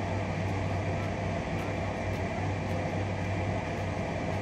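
Steady low hum under an even hiss of outdoor background noise, with no distinct events.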